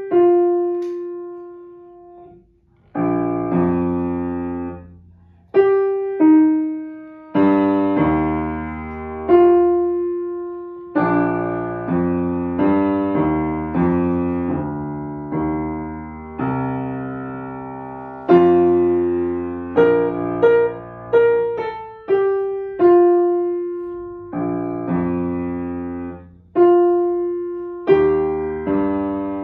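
Yamaha upright piano played slowly by a young child: a simple beginner's piece of single melody notes over low bass notes and chords, each struck and left to ring and fade, with short pauses between phrases.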